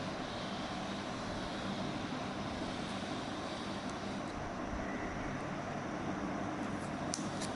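Steady outdoor background noise, an even rumble like distant traffic, with a few faint ticks near the end.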